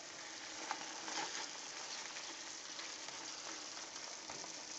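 Ground beef frying in a skillet: a soft, steady sizzle with a couple of faint pops in the first second or so.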